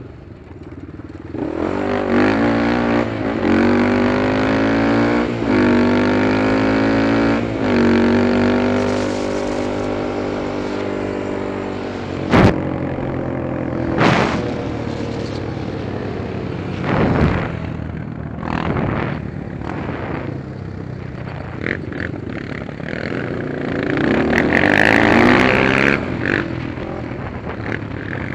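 Honda 400EX ATV's single-cylinder four-stroke engine accelerating hard through the gears. Its pitch climbs and drops with each of three quick upshifts, then it holds steady at speed. A few sharp knocks come about halfway through, and the engine revs up loud again near the end.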